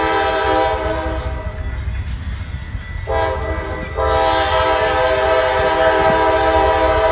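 CSX diesel locomotive air horn blowing two long blasts. The first lasts about two seconds. The second starts about three seconds in, gets louder about a second later and is still sounding at the end.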